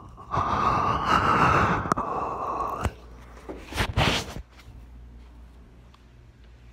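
A long, high-pitched wavering cry from a child, with rustling and thumps under it, lasting about two and a half seconds; a short loud burst of noise follows about four seconds in.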